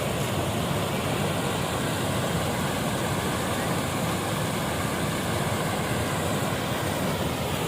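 Rainwater runoff rushing and flowing, a steady even rushing noise.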